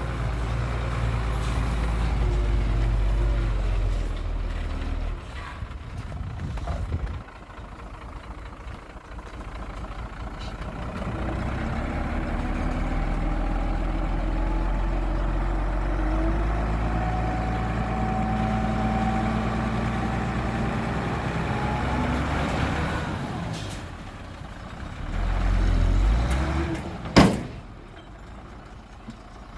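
Heavy diesel engines of a bulldozer and dump truck working, the low rumble easing off and building again with rising engine pitch. A single sharp burst near the end, like an air-brake release.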